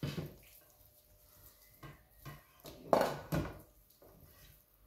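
Kitchen clatter as chopped food is tipped into a frying pan: a handful of short knocks and scrapes of a utensil against the pan, the loudest about three seconds in.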